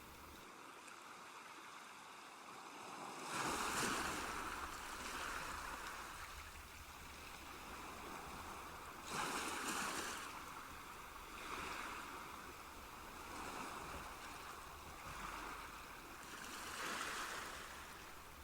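Recorded water sounds: a soft washing of moving water that swells and ebbs every couple of seconds, loudest about four seconds in and again near ten seconds.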